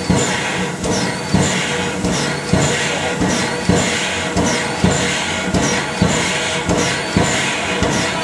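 Krauss steam tram locomotive heard from its footplate while running: steady steam hiss and mechanical clatter with a regular beat of louder pulses a little over once a second and softer ones between, and a repeated high squeak.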